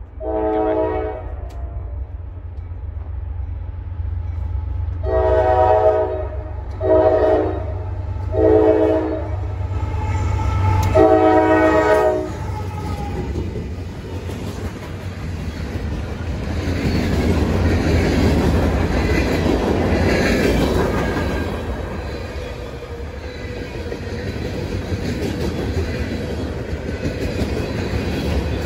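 Norfolk Southern diesel freight train sounding its air horn in five blasts for the crossing, the last one long. Its locomotives then pass close by, followed by the steady rumble and clickety-clack of freight car wheels rolling over the rails.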